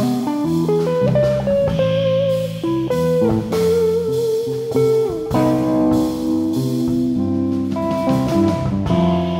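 Jazz guitar trio playing: a Heritage 535 semi-hollow electric guitar carries a single-note melody with wavering vibrato on held notes and a slide down near the middle. Electric bass and a drum kit with cymbals play beneath it.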